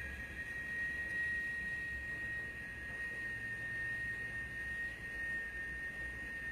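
A steady, high-pitched pure tone, with a fainter tone just below it, held without fading over a low hum: a sustained ringing tone played as a healing sound.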